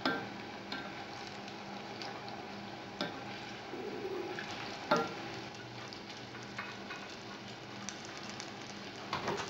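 Battered banana fritters frying in hot vegetable oil in a stainless steel saucepan: a steady sizzle, with a few sharp clicks of the utensil against the pan as the fritters are turned, the loudest at the very start and about five seconds in.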